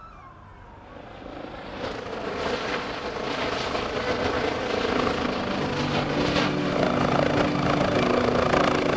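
Eurocopter EC135 air-ambulance helicopter coming in to land, its rotor and turbine noise with a beating chop growing steadily louder as it approaches and descends.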